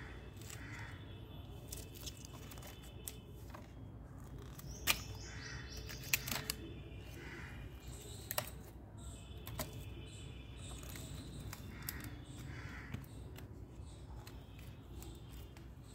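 Hand pruning shears snipping woody plant stems: a few sharp clicks and snaps, the loudest about five seconds in, with birds chirping faintly in the background.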